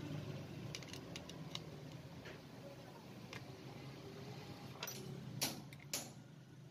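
Faint, scattered metallic clicks and taps from a socket wrench and engine parts as the oil pump cover bolts are tightened with an 8 mm socket. Two sharper clicks come near the end, over a low steady hum.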